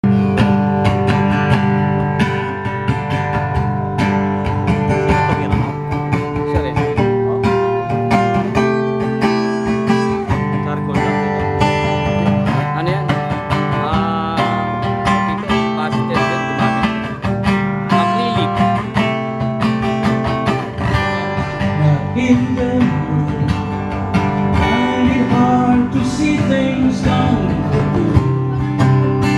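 Acoustic guitar strummed in a steady rhythm, played live as the instrumental opening of a song.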